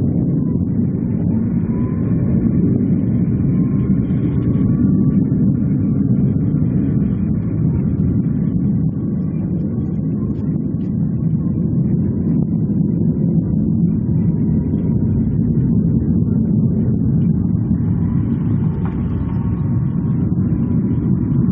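Aircraft engines heard from the ground: a steady low rumble with a faint high whine above it.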